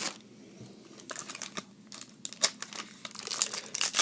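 Trading-card pack wrappers crinkling and cards being handled: scattered short crackles that grow denser over the last second.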